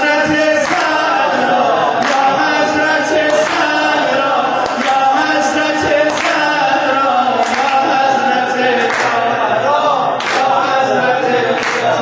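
A male voice leads a Shia devotional chant in praise of Hazrat Zahra, and a group of voices joins in. Sharp strokes mark a steady beat about once every second and a third.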